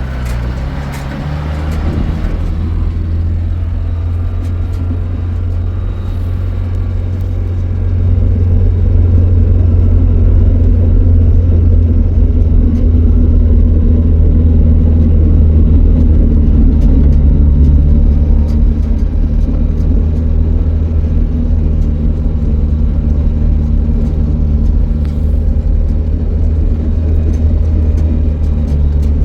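A motor vehicle's engine running steadily with a low rumble, growing louder about eight seconds in.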